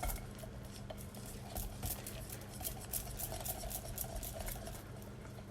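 A utensil stirring and beating semolina cake batter in a bowl, with quick, irregular clicks and scrapes against the bowl.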